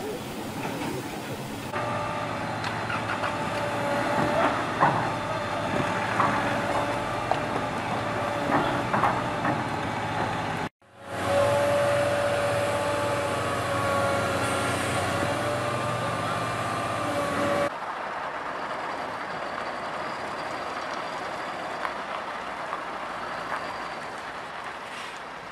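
Heavy diesel machinery and trucks running in several short clips cut one after another. There is a steady high whine in the middle, and a brief dropout about eleven seconds in.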